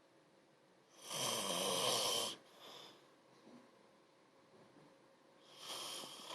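A person snoring: two snores, a loud one about a second in lasting over a second, and a weaker one near the end.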